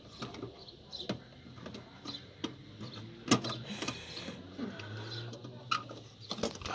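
Irregular plastic clicks and knocks from hands working behind a BMW E60's headlight housing, freeing the halogen low-beam bulb and its connector. A sharp knock about three seconds in is the loudest.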